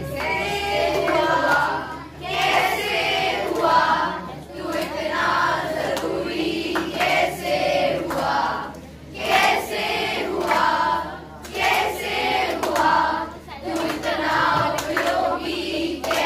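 A group of children singing together in chorus, some clapping their hands along.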